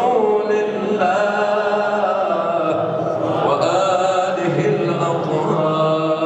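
Chanting of an Islamic devotional hymn of blessings on the Prophet (salawat), the voice drawing out long ornamented notes that slide up and down in pitch.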